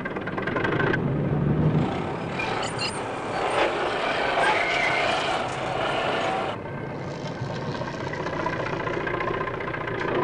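Construction machinery running: heavy truck and excavator engines, with knocking and clatter for a few seconds in the middle, then a quieter, duller engine sound near the end.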